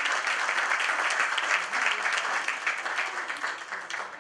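Audience applauding, many hands clapping at once, thinning out near the end.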